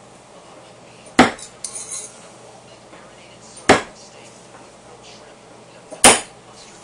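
Three throwing knives striking a wooden 2x4 target, one sharp hit about every two and a half seconds. Just after the first hit comes a brief metallic clatter as it strikes the knives already stuck in the cluster.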